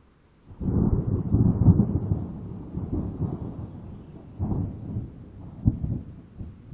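Thunder: a clap breaks about half a second in and rolls into a long low rumble, with further rolls near the middle and a sharper crack toward the end.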